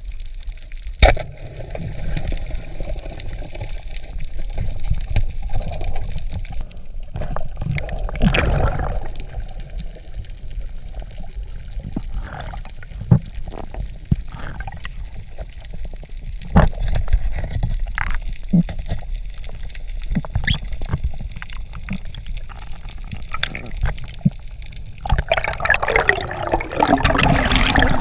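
Underwater water noise picked up by a diver's camera: a low rumble and gurgle with scattered sharp knocks and clicks. Near the end it turns into a louder rush of bubbling water as the diver rises to the surface.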